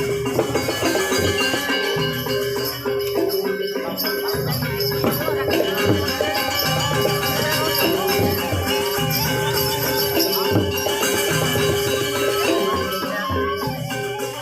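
Balinese gamelan playing dance music: bronze metallophones and gongs over a held low tone, with a fast metallic jingling of small cymbals.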